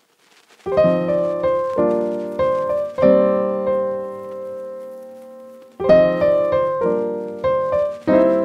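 Piano music: chords and notes struck and left to ring and fade, entering just under a second in, with a fresh phrase at about six seconds.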